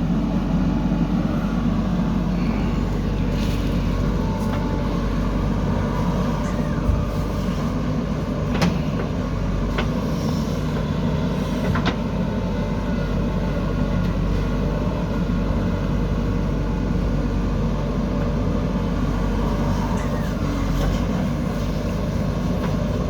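Diesel engine of a JCB backhoe loader running steadily at work, with a few sharp knocks scattered through.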